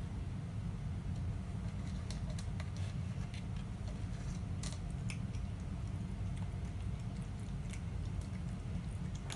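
Light, irregular clicks and rattles of dry cat food against an orange plastic slow-feeder puzzle bowl as a cat paws and noses the kibble out of its spiral grooves, over a steady low hum.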